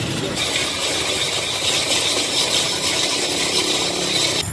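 Hand-cranked cast-iron ice shaver grinding a block of ice into shaved ice: a steady scraping rasp with a mechanical rattle from the crank. It cuts off abruptly near the end.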